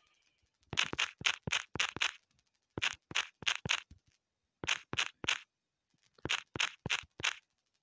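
Key clicks of typing on a smartphone's on-screen keyboard: sharp clicks in quick runs of four to six, one per letter, with short pauses between the runs.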